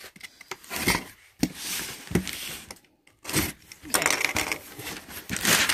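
Cardboard boxes being handled and opened by hand: an irregular run of knocks, scrapes and rustles, busier in the second half.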